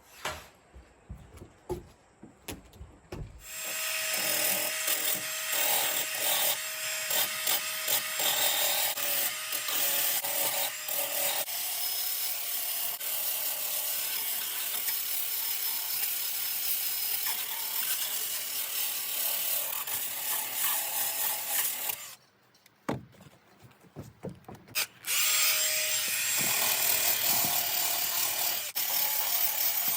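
Power tool sanding or scraping the old red paint off wooden deck boards, running steadily, stopping about two-thirds of the way through and starting again a few seconds later.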